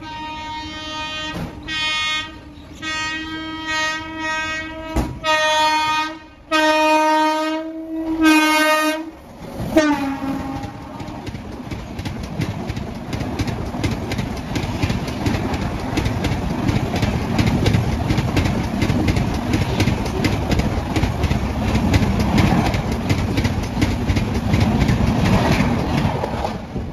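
Indian Railways WAP-7 electric locomotive sounding its horn in a string of about nine short and long blasts, the pitch dropping as it goes past. Then a loud, fast rattle and clickety-clack of its coaches rushing by on the adjacent track, cutting off abruptly near the end.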